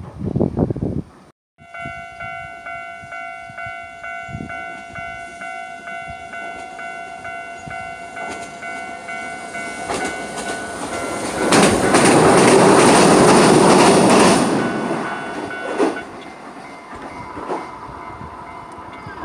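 Japanese level-crossing alarm ringing, a two-tone ding pulsing about twice a second. Over it a Hiroden tram passes over the crossing, its rail noise swelling to a loud peak a little past halfway and then fading. The alarm stops near the end.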